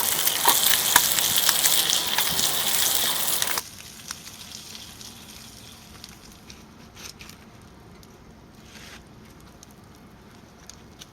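Pork belly sizzling and frying in a skillet over a wood fire: a loud, dense sizzle with crackles that cuts off abruptly about three and a half seconds in. A quiet stretch follows, with faint scattered crackles and clicks.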